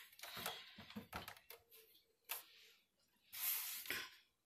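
A few light clicks and taps, then two short hisses of blown air from a Makartt ZC-044 electric nail polish dryer's fan, the first faint and the second louder, starting and stopping as it switches on.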